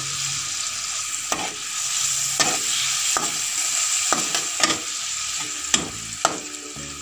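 Spice paste and sweet soy sauce sizzling in an aluminium wok while a slotted metal spatula stirs it. The spatula scrapes and clinks against the wok about once a second, most sharply near the end.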